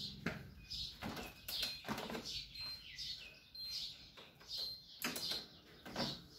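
Small birds chirping over and over, each call a short falling chirp, with several sharp knocks in between.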